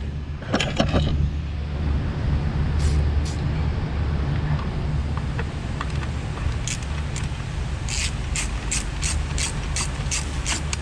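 Ratchet wrench clicking: a few clicks about a second in, then a steady run of quick ratchet strokes, about three a second, through the second half. Under it runs a steady low hum.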